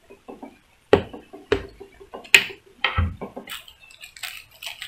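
Desk handling noise: four sharp knocks and clicks over about two seconds as a motorcycle helmet is set down on a wooden desk and a clip-on microphone is handled, then light rustling.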